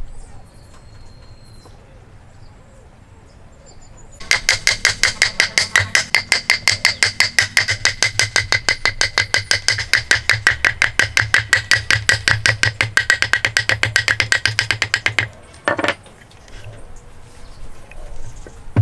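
Rapid, steady tapping of a small wooden block against a timber beam, about five blows a second for some eleven seconds, knocking the interlocking dovetail joint loose from its post. One further knock follows as the tapping stops.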